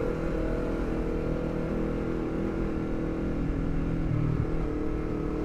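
Honda CBR250RR fitted with a Villan MV2 carbon forged full-system aftermarket exhaust, running at a steady, light throttle while being ridden. The engine note holds an even pitch without revving up.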